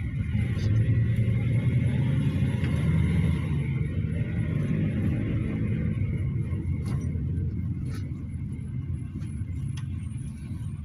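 Cabin noise inside a GAZelle Next minibus while it drives: a steady low rumble of engine and road noise, growing gradually quieter through the second half, with a few faint clicks.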